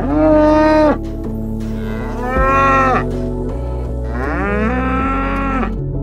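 Dairy cows mooing: three separate calls, each rising at the start and then held. The last one, about a second and a half long, is the longest.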